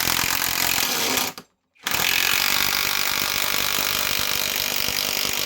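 Greenworks Pro IW 5800 cordless mid-torque impact wrench hammering a fastener in with rapid impacts. The first run cuts off about a second and a half in, and after a brief pause a second, longer run starts up.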